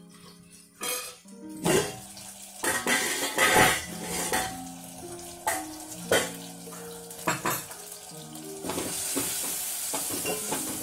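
Stainless steel clinks and clatters as a steel plate lid is taken off a pot and a steel ladle goes in, then stewing tomatoes sizzle in oil while being stirred, from about eight and a half seconds in. Background music with sustained notes plays throughout.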